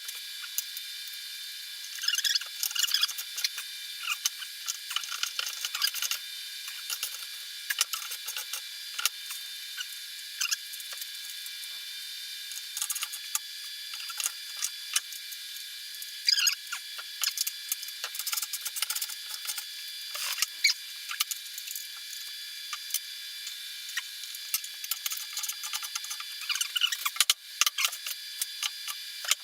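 Small irregular metal clicks and scratching as nuts are threaded onto bolts by hand, over a steady hiss.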